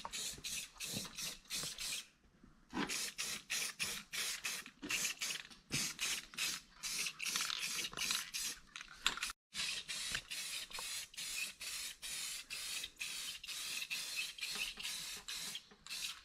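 Aerosol lens-tint spray can hissing in short rapid bursts, about three a second, as a coat of tint is sprayed onto tail light lenses.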